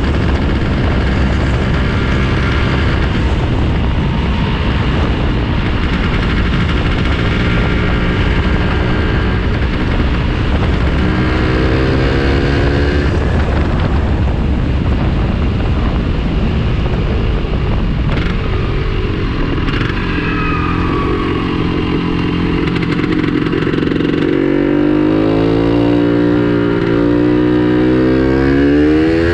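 Two-stroke Vespa scooter engine with a Quattrini M232 cylinder kit and SIP Road 3.0 expansion exhaust, running under way with heavy wind and road noise over it. The revs climb about halfway through and again in a long rising pull near the end.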